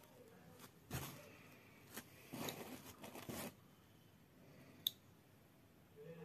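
Faint handling noise from a closed Albaceteña-style folding knife turned over in the hands: rubbing and scraping of fingers on the handle, with a few small clicks and one sharper click about five seconds in.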